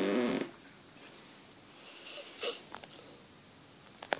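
A short voiced burst from a person, about half a second long, right at the start, then a faint breathy sound about two seconds in and a few sharp clicks near the end.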